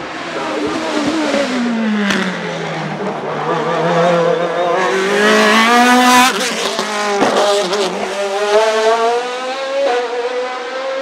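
A hillclimb prototype race car's engine at high revs as the car passes close by. The engine note falls at first, then climbs in steps that each end in a sudden drop as the car shifts up through the gears, loudest about six seconds in.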